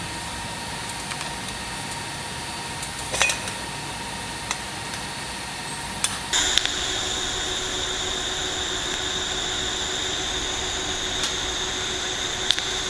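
A few light metal clinks and knocks as stainless pipe fittings are handled and set in place. About six seconds in, a steady hiss with a hum starts suddenly, louder than the clinks, and keeps going.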